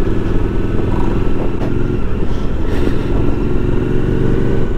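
Suzuki V-Strom motorcycle engine running at low road speed. Its note eases about two seconds in and rises again.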